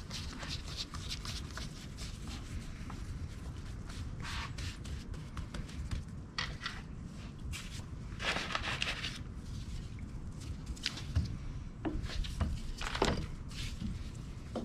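Quiet handling noises from gloved hands patting and pressing pizza dough on a wooden cutting board, over a low steady rumble. A longer rustle of plastic comes about eight seconds in, and a few light knocks near the end.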